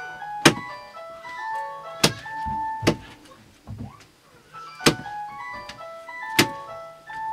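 A curved sickle blade chopping raw chicken on a wooden block: sharp, clean knocks every second or two, about five in all. Behind them runs background music, a plinking melody of short notes.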